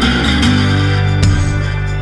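Guitar music: sustained pitched notes, with a new note or chord plucked about every second.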